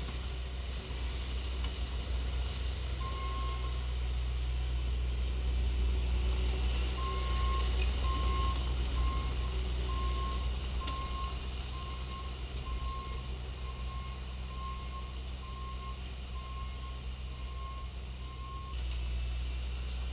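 Bobcat T870 compact track loader's diesel engine running steadily while its backup alarm beeps about once a second as it reverses; the beeping stops shortly before the end.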